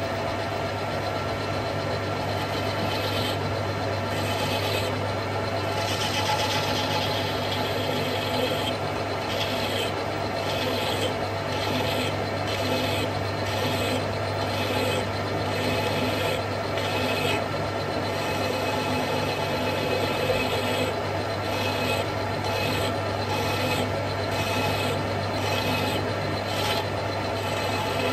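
Metal lathe running with a steady hum while a hand tool is worked against the spinning Snider-Enfield muzzle in repeated short strokes, a little over one a second, dressing and bevelling the muzzle crown.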